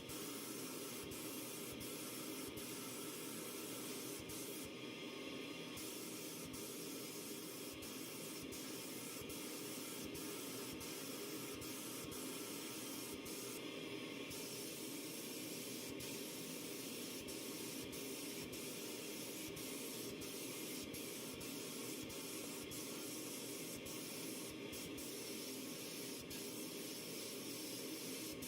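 Steady hiss of a compressed-air spray tool running continuously, with faint ticks throughout.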